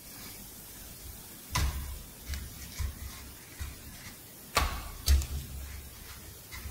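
Fried churro rings being pressed and rolled in granulated sugar on a metal tray and set down by hand: a few soft thuds and gritty scrapes at irregular intervals, the loudest about five seconds in.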